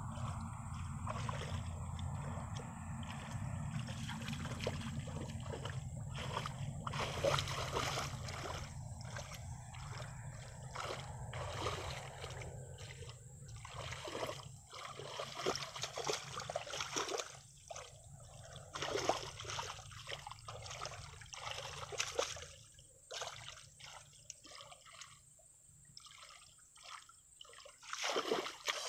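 Hands sloshing and splashing through shallow muddy water, with irregular small splashes and trickles as the mud is felt through for fish. A low steady rumble runs under the first half and fades out about halfway.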